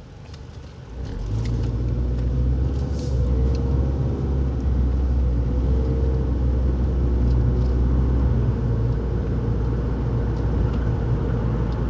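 Car running on the road, heard from inside the cabin: a steady low rumble of engine and road noise that comes up about a second in and holds.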